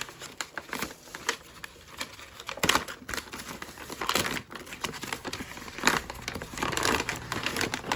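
Product packaging being handled and opened by hand: irregular crinkling and rustling, with a few louder bursts.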